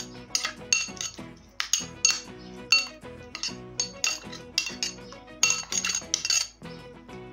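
A metal spoon clinking and scraping against a cut-glass bowl as a soft mixture is stirred, in irregular strikes, several a second, over background music.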